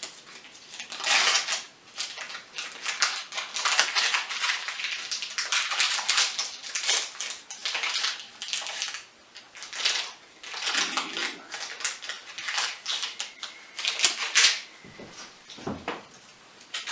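Vegetable shortening in its wrapper rubbed back and forth over a wood cook stove top to season it: irregular scraping, rustling strokes.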